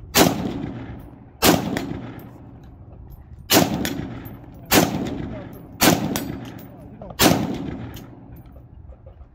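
Custom-built .308 pistol fired six times at an uneven pace, about one shot every one to two seconds. Each loud report is followed by a long echoing decay.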